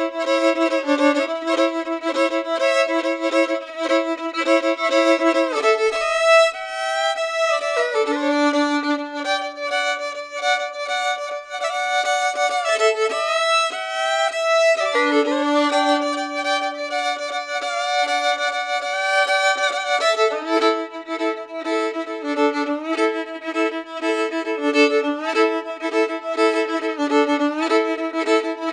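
Solo fiddle music: a lively melody of quick running notes, with two longer held low notes in the middle and a few slides in pitch.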